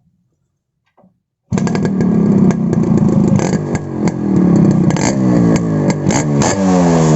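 Yamaha RX135 two-stroke single-cylinder engine, breathing through a silencer fitted with a custom baffle ('flute') for a louder modified exhaust note, comes in suddenly about a second and a half in and runs loud, revved in repeated rising throttle blips.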